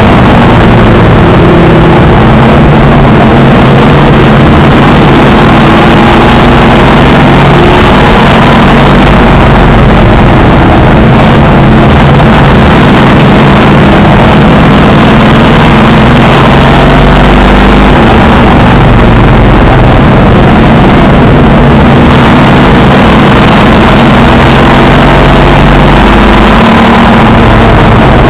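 Race car engine running hard at racing speed, heard from inside the car, so loud that the recording is overloaded throughout. Its pitch falls and climbs again a few times, around the turns of the track.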